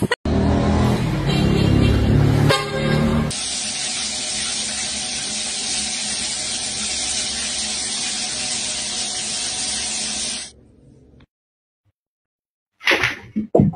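A loud horn-like blare of several pitched tones for about three seconds, then a rain shower head spraying water in a steady hiss that stops abruptly after about seven seconds.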